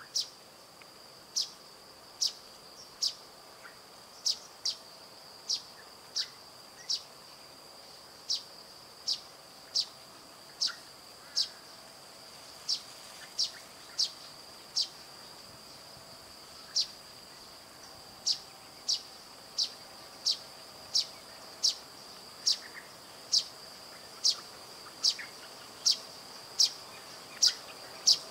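A steady high-pitched insect drone with a sharp, short, high chirp repeated slightly more than once a second, pausing briefly about halfway.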